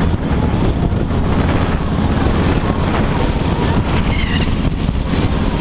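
Heavy wind buffeting on the microphone of a camera riding on a motorcycle at highway speed, over the steady low rumble of motorcycle engines.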